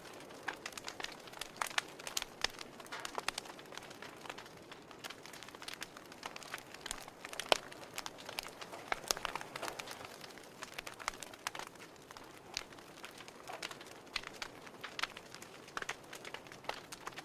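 Wood fire crackling: irregular sharp pops and snaps, several a second, over a steady soft hiss, with one louder pop about seven and a half seconds in.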